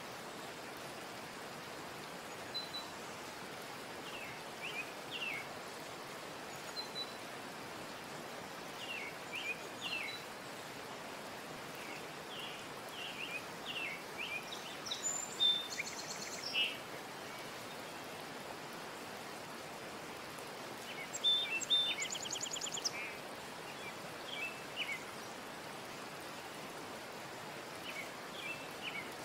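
Birds chirping, with short scattered calls and a couple of rapid trills, over a steady hiss.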